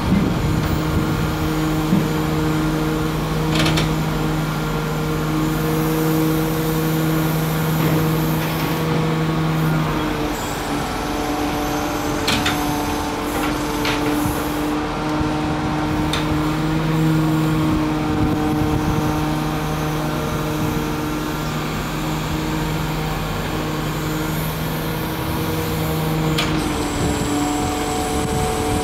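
Pontoon-mounted hydraulic grab excavator's engine and hydraulic pump running steadily under working load as the clamshell grab swings and dumps. The steady tone shifts in pitch about a third of the way in and again near the end, with several sharp metallic clanks.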